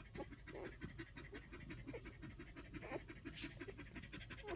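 Collie bitch panting fast and steadily, faint, while her week-old puppies nurse at her belly.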